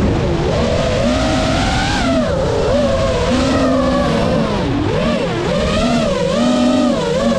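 The brushless motors and propellers of a GEPRC Mark 5 FPV quadcopter whining, rising and falling in pitch as the throttle changes, heard loud from the drone's own on-board camera.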